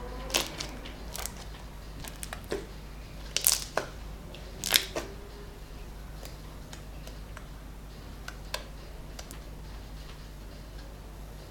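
Homemade slime being worked by hand, giving a series of sharp pops and clicks, most of them in the first five seconds and fainter after.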